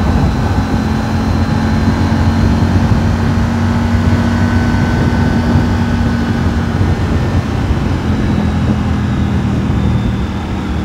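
Triumph Tiger 900's three-cylinder engine running steadily at highway cruising speed, with wind rushing over the microphone. There is a slight dip in level near the end.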